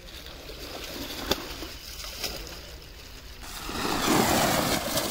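Water splashing and churning, faint at first and then much louder about three and a half seconds in.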